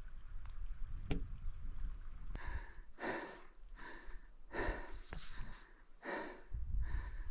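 A person breathing in and out close to the microphone, a regular run of breaths starting a couple of seconds in, with a couple of faint clicks before them.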